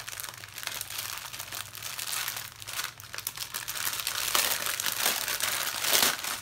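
Clear plastic packaging of a diamond painting kit crinkling as it is handled: small bags of drills and the plastic film over the canvas, with louder rustles about four and six seconds in.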